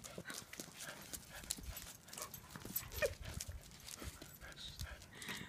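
Light, irregular clicking and tapping of feet on brick pavers as a small dog and a tortoise move about, with a brief higher-pitched sound about three seconds in.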